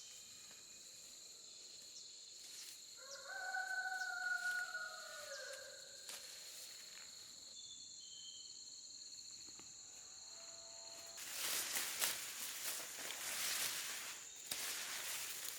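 Insects buzzing with a steady high whine, and a rooster crowing once about three seconds in. Near the end the insects stop and a few seconds of rustling noise take over.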